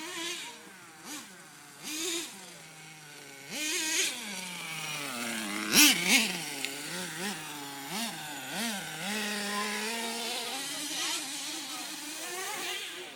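Car engine revved over and over in short blips, its pitch rising and falling, with a loud sharp crack about six seconds in.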